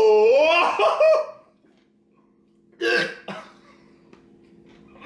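A man's long, wordless 'ooh' with swooping pitch. After a short pause, about three seconds in, comes a brief cough. A faint steady hum runs underneath.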